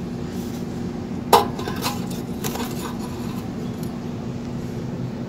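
Engine oil dipstick being slid back into its tube on a diesel engine to read the oil level: one sharp metallic clink about a second in, then a few lighter clicks and scrapes.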